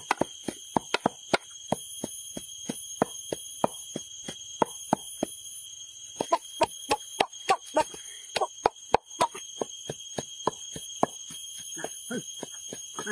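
A wooden pestle pounding in a wooden mortar and a cleaver chopping on a wooden board make a quick, uneven run of sharp knocks, about three a second. A steady high-pitched whine runs under them.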